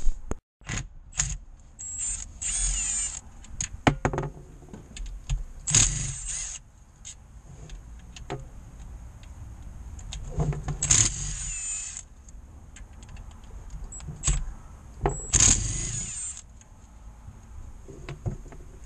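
A cordless driver whirring in about four short runs, each about a second long, as it spins out the small 8 mm bolts of a crankshaft rear oil seal housing. Sharp metal clicks fall between the runs.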